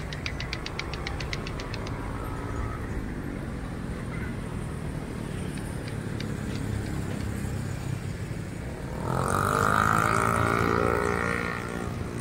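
Steady road traffic rumble on a bridge over a flooded river. A motor vehicle passes close by about nine seconds in, louder for a couple of seconds, its engine note rising slightly before fading.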